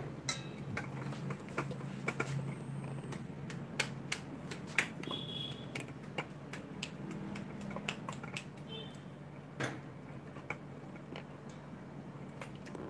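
Light, irregular clicks and taps of a wire balloon whisk and a silicone spatula against a stainless steel mixing bowl as stiff meringue is scraped off the whisk, over a faint low steady hum.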